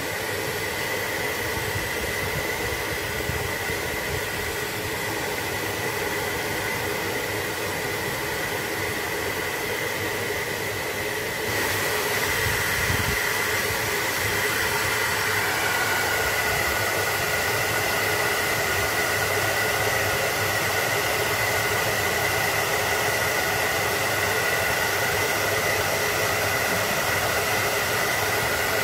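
Steady whirring hiss of a small electric motor, stepping up in loudness about eleven seconds in, with its pitch shifting a few seconds later.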